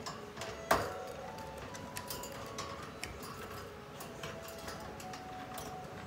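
A parrot moving about its wire cage: scattered light clicks and ticks of beak and claws on the bars and perch, with one louder knock just under a second in.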